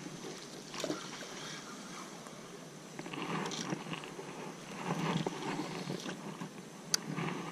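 Water being splashed and sloshed in several irregular swishes, with one sharp click about seven seconds in.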